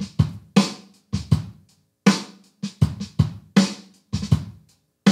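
Programmed MIDI drum groove playing from Logic Pro X's Brooklyn software drum kit at 80 BPM: kick, snare and hi-hat, with softer ghost notes on the kick and varied hi-hat velocities. Every hit is quantised rigidly to the click grid.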